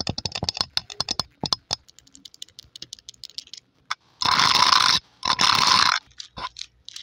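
Long painted fingernails tapping and scratching on a microphone's metal mesh grille. It opens with quick clicking taps, then two loud scratching strokes of about a second each come a little past the middle, and a few more taps follow.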